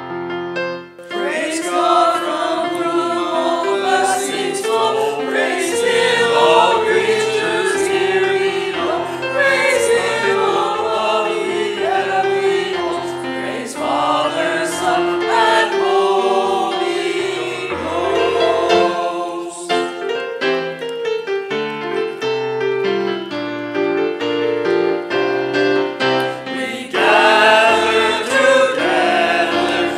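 Small mixed church choir singing a hymn with piano accompaniment. The voices drop out past the middle for several seconds while the piano carries on alone, then come back in near the end.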